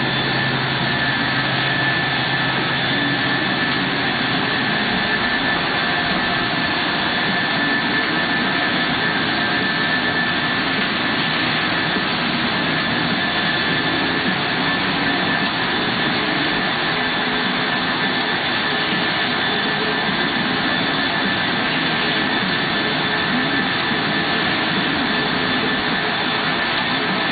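Biesse Skipper 100 CNC panel boring machine running while it works a panel: a loud, even machine rush with a steady high whine held throughout.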